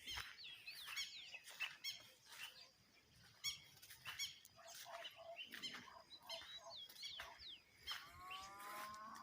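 Dawn chorus of songbirds: many short chirps, trills and quick whistled glides repeating throughout. About eight seconds in, a longer, lower drawn-out animal call rises up under them.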